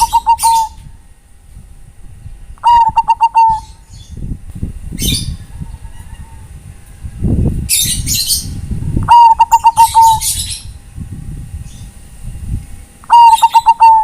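Bangkok-type zebra dove (perkutut) cooing: four short stuttering coo phrases, each a quick run of notes under a second long, spaced a few seconds apart. Small birds chirp high-pitched in between, over a low rumble.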